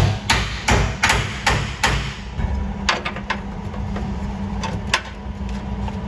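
Hammer tapping on car-body sheet metal. A quick run of sharp strikes comes in the first two seconds, then a few scattered taps, over a steady low hum.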